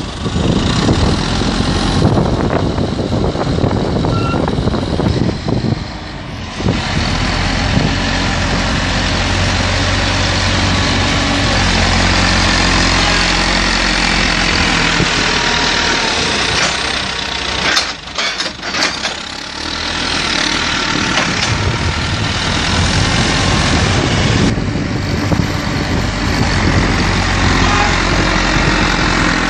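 JCB backhoe loader's diesel engine running hard as the front loader bucket digs into and lifts wet soil. The engine eases off briefly a little past halfway, then works up again.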